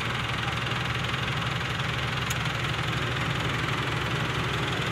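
Diesel engines of a Ford 7740 tractor close by and an Isuzu six-wheel dump truck running steadily at an even pace, the truck bogged down under a load of laterite.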